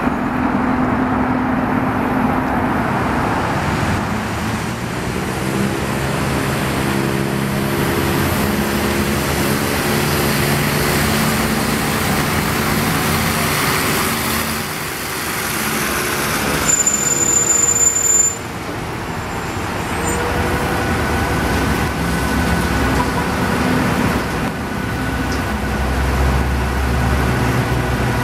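City transit bus engine running, its pitch gliding up and down as the bus moves and pulls away, over steady street traffic noise. A brief high whine about two-thirds through, then a steady hum.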